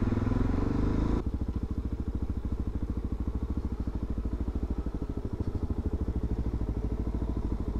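Motorcycle engine running. For about the first second the bike is moving in traffic; then the engine settles into a steady idle with an even, fine pulsing beat.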